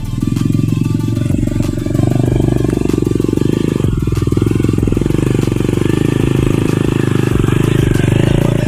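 Motorcycle engine running hard under load at fairly steady revs while climbing a long, steep hill, a little louder from about two seconds in.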